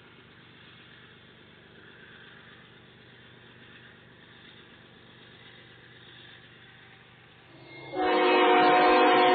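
Faint, steady low rumble of a freight train's diesel locomotives for the first eight seconds. Then a diesel locomotive's multi-chime air horn sounds suddenly and loudly, several notes held together in one steady chord.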